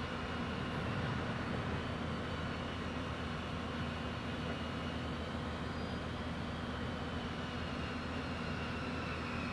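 Diesel engine of a Georgetown Rail Equipment self-powered slot train's power car idling, a steady low hum with a faint high whine slowly falling in pitch.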